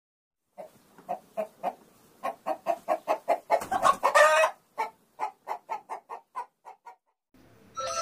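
Hen clucking in a quick series of short clucks. A longer, louder squawk comes about three and a half seconds in, then the clucks taper off. Music begins near the end.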